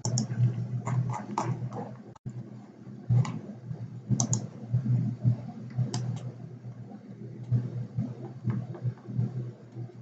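Scattered, irregular clicks of a computer mouse and keyboard being worked, over a steady low hum.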